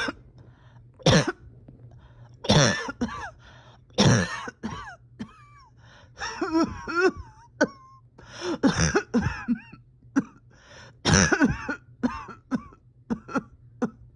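A person coughing in painful, repeated fits from a tight chest: loud harsh coughs come every second or two, with voiced throat clearing between them and a cluster of quicker coughs in the middle.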